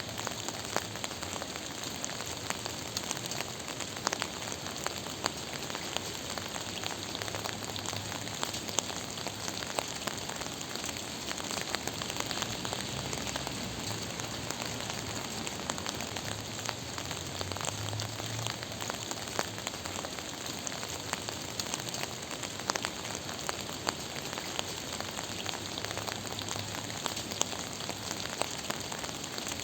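Steady gentle rain falling, a continuous hiss dotted with many separate drop ticks.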